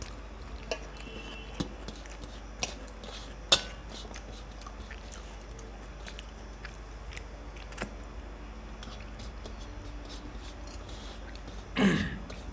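Eating sounds of people eating rice and curry with their fingers from steel plates: chewing, with scattered soft clicks and taps and one sharper click a few seconds in. A louder short noise comes near the end.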